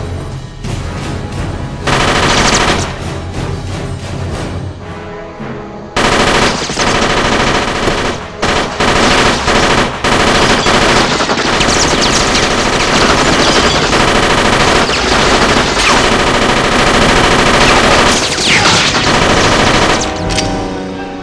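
Sustained automatic gunfire over a film music score: a short loud patch about two seconds in, then near-continuous rapid fire from about six seconds in that eases off near the end.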